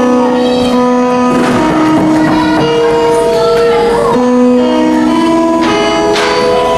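Background music: a melody of long held notes, one after another.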